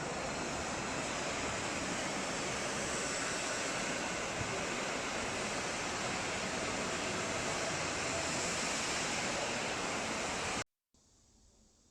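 Factory machinery of a cooling pad production line running, a steady wide hiss-like noise with no clear rhythm, cutting off abruptly about ten and a half seconds in.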